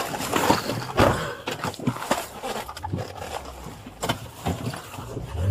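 Knocks, thumps and rustling of a body-worn camera and an officer's duty gear jostling as he gets into the driver's seat of a patrol car, with a louder thump about a second in.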